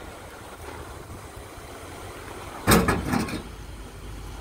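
Low, steady engine rumble of a Jeep Gladiator pickup crawling over rock ledges at low speed. A loud burst of noise, under a second long, comes about two-thirds of the way in.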